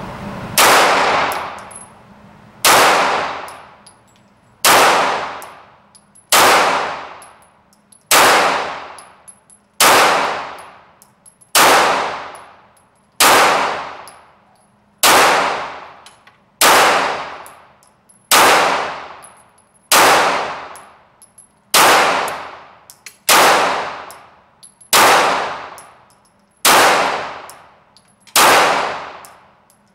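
Glock 34 Gen 4 9mm pistol fired in slow, steady single shots, about seventeen of them at a regular pace of roughly one every 1.7 seconds. Each shot has a long echoing tail in the indoor range.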